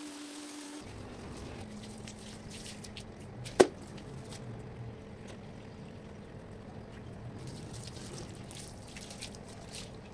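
Pressure washer spray hissing onto a wet doormat, cutting off about a second in. Then come quiet squishing and dripping from the soaked mat as it is handled and rolled up, with one sharp click just under four seconds in.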